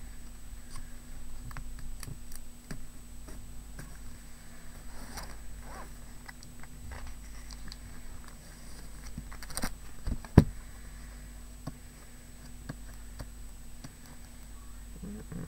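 Sealed wrapper being opened and a paper pad handled: scattered small crackles and clicks, with one sharp knock a little past the middle.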